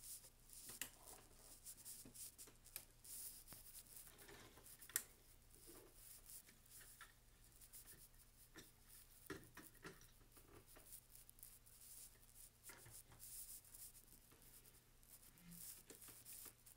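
Faint clicks and rustling of LEGO bricks and built models being handled and slid over a wooden table, with a sharper click about five seconds in.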